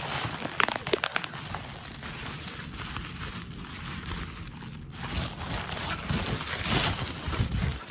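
Packaging rustling and crinkling while tool parts are handled and unpacked, with scattered small knocks and clicks.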